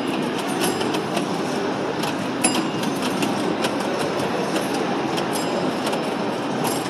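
Antique pinball machine in play: a steady rattling rumble with scattered sharp mechanical clicks, a few of them ringing briefly.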